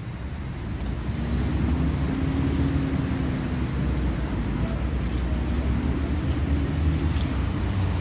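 Road traffic: a steady low rumble of cars and vans on the adjacent road, with a passing vehicle's engine hum rising and falling slightly a couple of seconds in.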